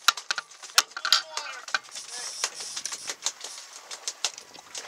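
Rapid, irregular sharp clicks and taps, with faint voices underneath about a second in.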